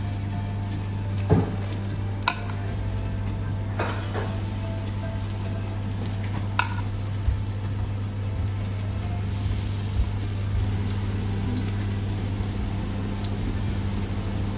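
Zucchini fritter batter sizzling in hot olive oil in an oven tray as spoonfuls are dropped in, over a steady low hum. A few sharp clinks of a metal spoon against the bowl and tray come in the first seven seconds.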